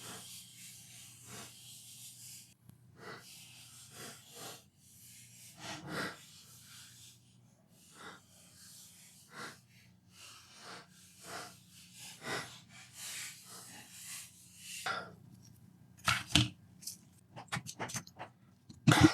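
A brush sweeping dust from PlayStation 4 parts in repeated short hissing strokes, over a faint steady low hum. Near the end come a few sharp clicks and knocks.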